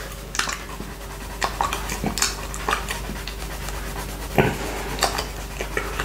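Close-up wet mouth sounds of a tongue licking a small glass dish: irregular smacks and sticky clicks, with one louder smack about four and a half seconds in.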